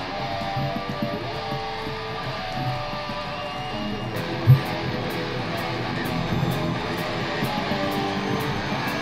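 Background rock music led by strummed electric guitar, with a single low thump about halfway through.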